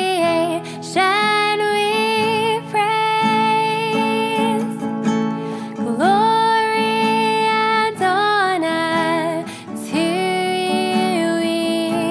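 Worship song: a female voice singing a melody in long held notes with vibrato, over strummed acoustic guitar.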